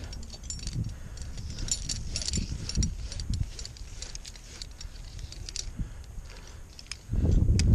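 Small metal clinks and jingles, like climbing hardware such as carabiners knocking together as the climber moves on the rope. Near the end a loud low rumble comes in suddenly.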